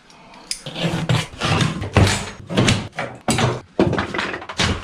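A quick, irregular run of knocks, thumps and cracks from demolition work, as cabin interior panels are banged loose and pried out.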